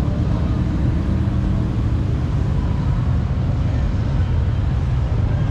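Motorcycle engines running, a steady low rumble.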